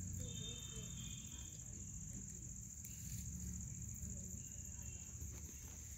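Insects trilling in a steady, unbroken high-pitched drone, over a low rumble.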